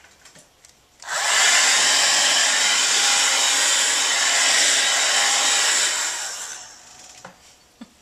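Turbo blow dryer switched on about a second in and blowing steadily for about five seconds, then fading out. It is being used to hurry the drying of a freshly thrown wet clay cup.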